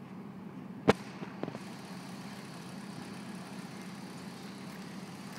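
Boat yard travel lift's engine running steadily, with one sharp knock about a second in and a few lighter clicks just after.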